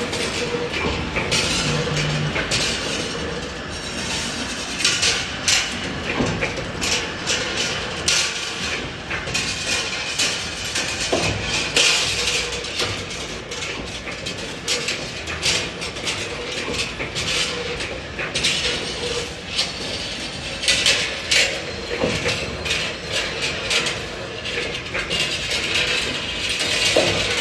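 Two-dimensional CNC wire bending machine running: a steady mechanical hum with a faint held tone, broken by frequent sharp clicks and clacks.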